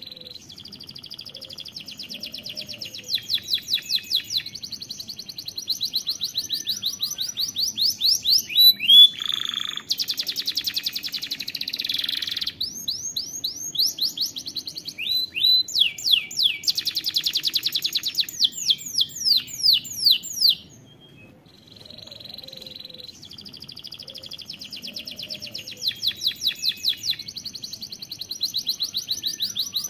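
Domestic canary singing a long song of rapid trills and rolls, phrase after phrase of fast repeated notes that change speed and pitch, pausing briefly about twenty seconds in before it starts again.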